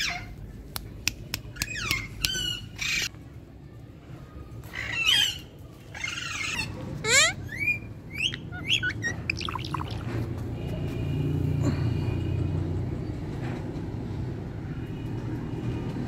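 A green ringneck parakeet making a quick string of short squawks, chirps and clicks with fast pitch sweeps through the first two-thirds. A steady low hum takes over for the last few seconds.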